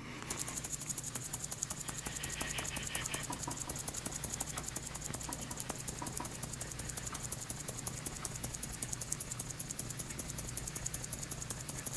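Capped glass tube of powdered lead(II) nitrate and potassium iodide shaken hard by hand: the powder swishes and rattles against the glass in a fast, even rhythm. This is the dry mixing that sets off the solid-phase reaction forming yellow lead iodide.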